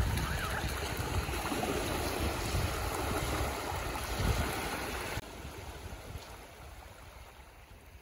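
Small waves washing up on a sandy shore, with splashing from a toddler's feet wading through the shallows. The sound drops suddenly in level about five seconds in and is quieter after.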